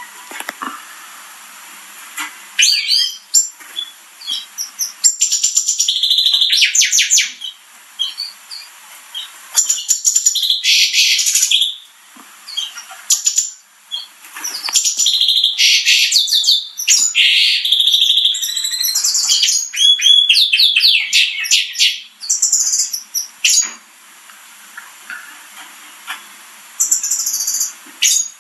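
Gloster canaries chirping in bursts of rapid, high-pitched calls and trills, with short pauses between the bursts.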